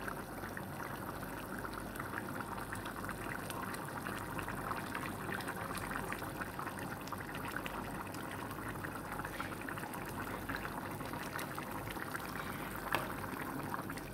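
Thick tomato-based prawn gravy bubbling at a simmer in a pot on a gas stove: a steady run of soft bubbling with many small pops.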